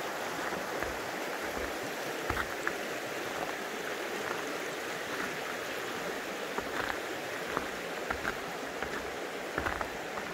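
Steady rushing of a creek flowing, with a few faint clicks and taps scattered through it.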